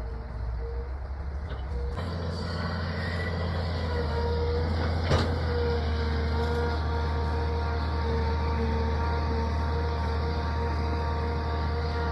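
Excavator's diesel engine running steadily, its low hum shifting about two seconds in, with a single sharp clank about five seconds in.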